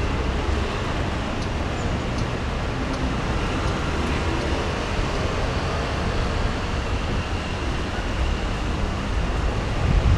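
Steady road traffic noise of cars driving through a street intersection, with a constant low rumble.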